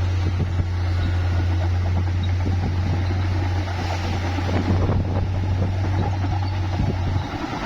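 Bulldozer's diesel engine running with a steady low drone, wind buffeting the microphone; the engine note drops away shortly before the end.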